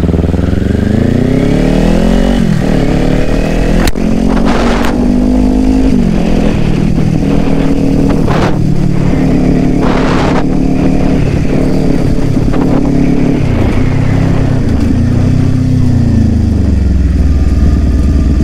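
Kawasaki Ninja 400's parallel-twin engine heard from on board while riding. Its pitch rises for the first two and a half seconds, drops at an upshift, then holds a steady cruise with a few small dips and rises. A few short rushes of noise cut in along the way.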